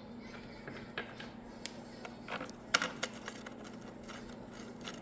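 Scattered small clicks and knocks of blower parts and a screw being handled and fitted by hand during reassembly, the sharpest about three quarters of the way through the third second, over a faint steady hum.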